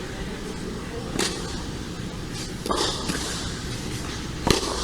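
Tennis ball struck by rackets in a rally, three sharp hits about a second and a half apart.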